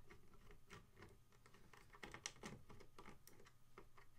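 Faint, irregular clicks and small scrapes of a Phillips screwdriver turning screws out of a skateboard rail on its wooden deck.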